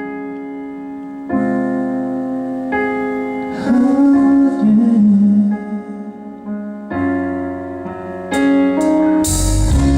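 Instrumental passage of a live pop ballad: electric piano playing held chords that change every second or two. Near the end, cymbal hits and drums with bass come in and the music gets louder.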